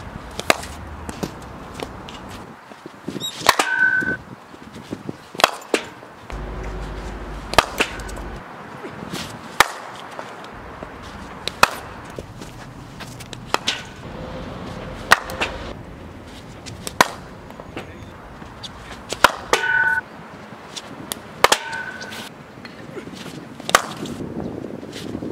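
Cricket bat striking balls in a batting net: a string of sharp knocks, about one every two seconds. Twice a knock is followed by a short ringing tone.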